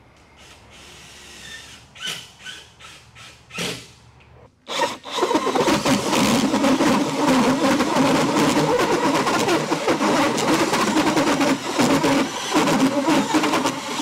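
Cordless drill driving a 3.5-inch hole saw through a plywood mounting board: a loud, continuous grinding cut with rapid chatter, starting about five seconds in after a few short knocks.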